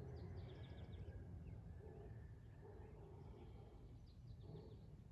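Faint bird chirps: a short run of quick high notes just after the start and another about four seconds in, over a low, steady background rumble.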